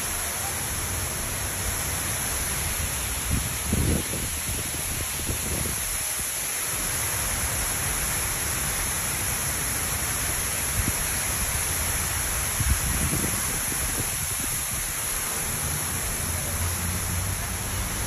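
Water of the Gerald D. Hines Waterfall, a large man-made water wall, falling in sheets down its ribbed wall: a steady rushing hiss, with a few brief low bumps near the start and middle.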